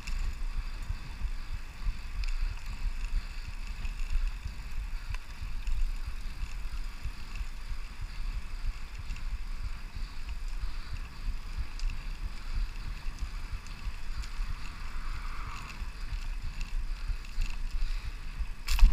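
Steady low rumble of wind on the microphone and tyre noise from a Brompton folding bicycle rolling along a paved path, with a sharp knock near the end.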